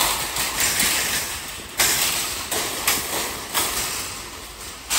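Wild hogs running about inside a corral trap. Sudden noisy rushes come about every half second to second, over a rough, rattling din.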